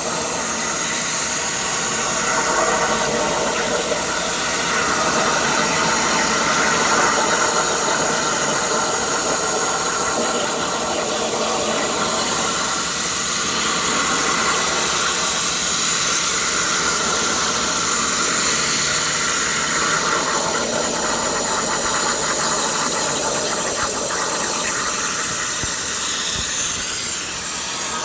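CNC plasma cutter cutting metal plate: a steady, loud hiss from the plasma arc with several steady tones running through it.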